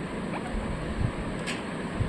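A low background rumble with a faint, short falling chirp from a ringneck parrot about a third of a second in, and a faint brief high chirp about a second and a half in.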